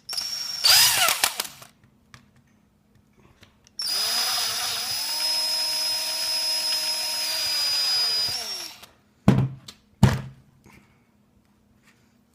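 Handheld power drill with a bit, drilling into a calculator's plastic case. It runs in a short burst, then runs steadily for about five seconds, winding up at the start and down at the end. Two sharp knocks follow near the end.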